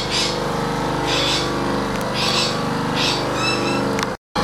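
Electric bench buffer with a cotton buff wheel running steadily with a humming motor, with a few short rustles over it. The sound cuts out briefly near the end.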